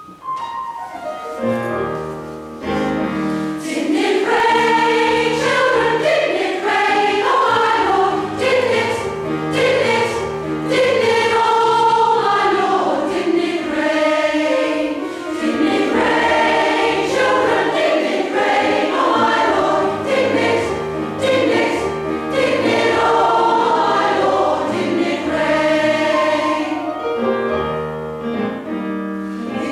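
Women's choir singing a gospel spiritual in several parts, with piano accompaniment, growing louder over the first few seconds. The singing rings in the church's reverberant space.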